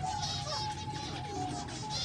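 Small cage finches chirping, with several short, high calls a second, over background music that carries a held melody.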